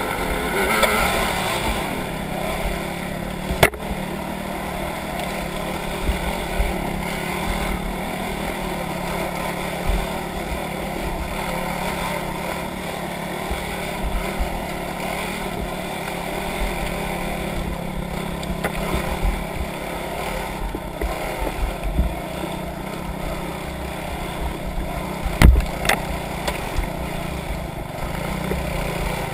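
Off-road vehicle engine running steadily through a climb, with a sharp knock about four seconds in and another near the end.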